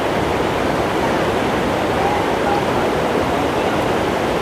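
Steady rush of falling water from the cascades of Athirappilly Falls on the Chalakudy River.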